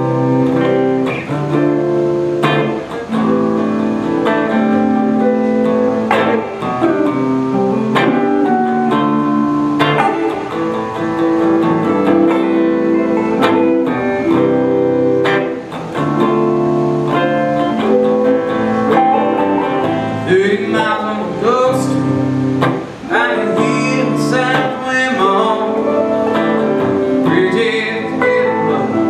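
Two electric guitars played live through small amplifiers, with a few bent notes in the second half.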